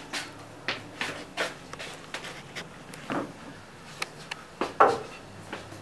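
Footsteps: a string of short, irregular steps, about two or three a second, over a faint steady hum.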